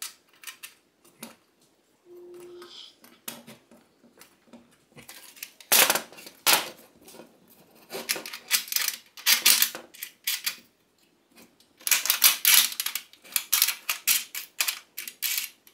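Metal clicks, clanks and scraping as the metal clamp brackets of a Parkside PSST A1 jigsaw table are fitted against a cordless jigsaw's shoe on the table's sheet-metal plate. The knocks come in clusters, busiest about six seconds in and again from about twelve seconds.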